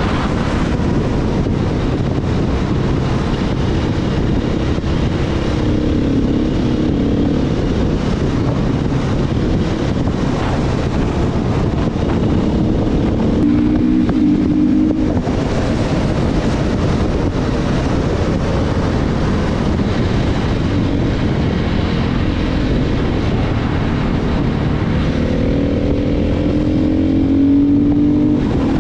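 KTM EXC enduro motorcycle being ridden: its single-cylinder engine running with the throttle opening and closing, the pitch rising and falling several times, under heavy wind rush.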